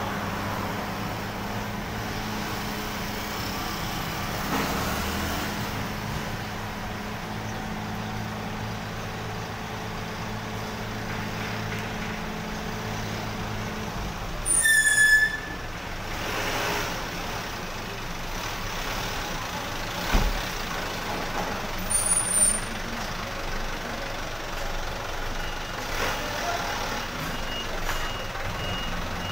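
Diesel truck engine running steadily at low speed as the truck moves off, its hum ending about halfway through, followed at once by a short, loud, high-pitched squeal. Near the end, faint evenly spaced reversing beeps start from a second truck backing up.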